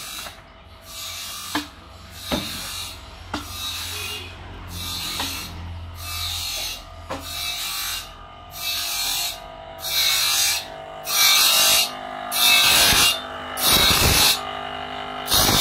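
Electric grinding wheel sharpening a sawmill bandsaw blade tooth by tooth: a rasping grind repeats about once every three-quarters of a second and gets much louder toward the end.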